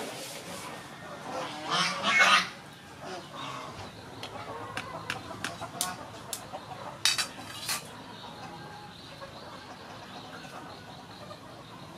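A loud call from poultry about two seconds in. Then, for several seconds, a scatter of sharp light clicks as a steamed egg's shell is cracked and a bamboo skewer is pushed into it.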